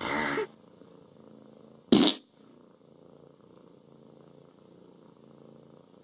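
A cat's drawn-out call ending about half a second in, then a single short, loud sound about two seconds in. After that, only faint low sound.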